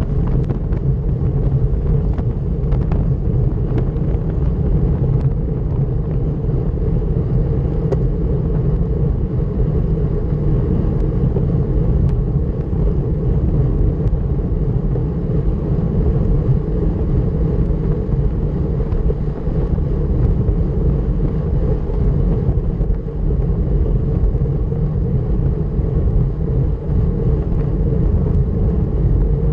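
Steady low rumble of wind buffeting the microphone and road noise from a road bike ridden fast in a team time trial, with a few faint clicks early on.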